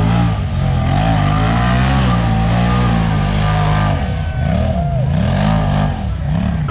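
Off-road vehicle engine revving up and down. It swells slowly at first, then is blipped up and back down about three times in quick succession near the end.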